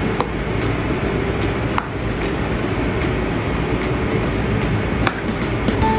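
A handful of light clicks of utensils against a stainless steel bowl as a glass-noodle salad is tossed, over a steady rushing noise.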